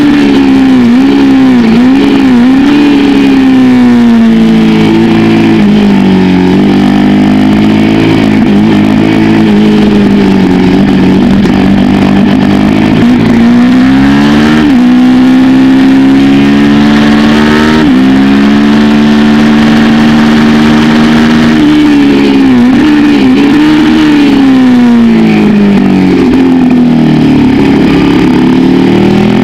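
Suzuki SV650's 90-degree V-twin engine at racing revs, heard from on the bike, its pitch climbing through the gears with sudden drops at upshifts and wavering dips as it is shifted down into corners. Wind noise runs underneath.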